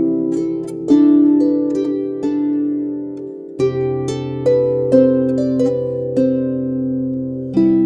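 Calm background music: slow plucked-string notes, each dying away, over a held low note.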